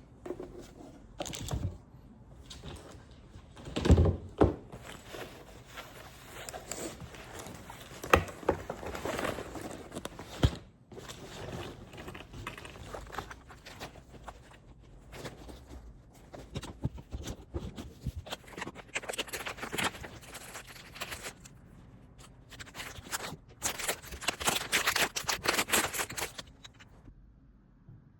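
Objects being handled: scattered knocks and clicks, one heavier thump about four seconds in, and several stretches of scraping or rustling.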